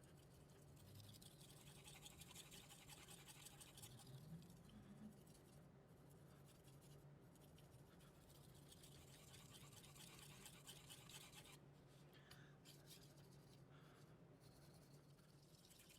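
Faint scraping of a steel kitchen knife blade stroked repeatedly along a fine 2000-grit whetstone, quieter than on a coarser stone because the fine polishing grit scrapes less. The strokes come in runs with short breaks between them.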